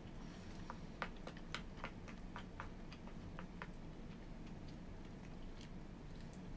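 Chopsticks clicking and tapping against a plastic bento tray while picking at food: a quick run of small sharp clicks for about three seconds, then a few scattered ones.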